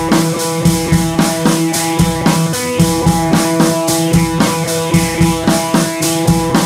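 Background music with a steady drum-kit beat over held, sustained notes.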